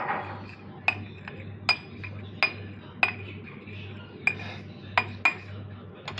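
A metal spoon clinking repeatedly against a cup, about eight sharp clinks at an uneven pace, over a steady low hum.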